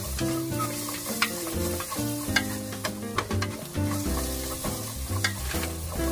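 Food sizzling in a frying pan while a spatula stirs it, with several sharp clicks of the spatula against the pan, under background music.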